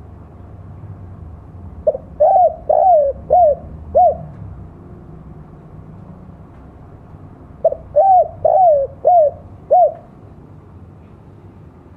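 Spotted dove (tekukur) cooing: two call phrases, each a short note followed by four coos.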